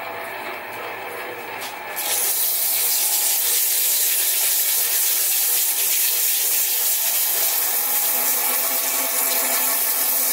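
Metal lathe running with the Stuart 10V flywheel spinning in its chuck; about two seconds in, wet-and-dry abrasive paper is pressed against the spinning rim, adding a loud steady hiss over the motor's hum as the surface is finished.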